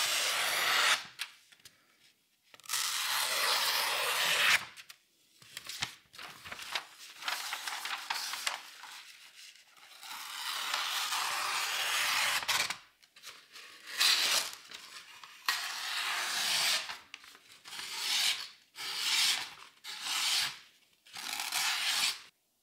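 A Konosuke Sumiiro petty knife's SLD steel edge slicing through a hanging sheet of newsprint flyer, in about ten separate cutting strokes as a paper test of its sharpness. The longer strokes come first and quicker, shorter ones near the end.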